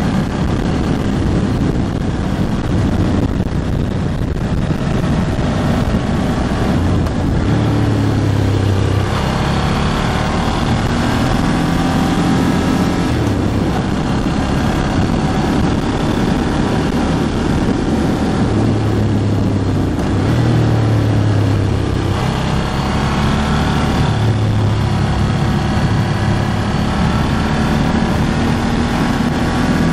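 Ducati Hypermotard 1100S's air-cooled L-twin engine running under way, its pitch rising and dropping several times as it accelerates and shifts, with wind noise over the microphone. The engine is in its break-in period.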